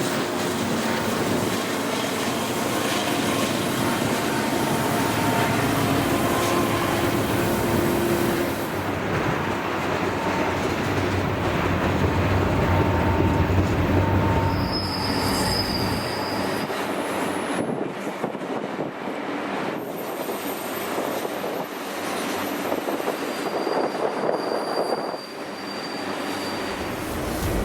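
A train rolling past, its cars rumbling on the rails, with high thin wheel squeals about halfway through and again near the end.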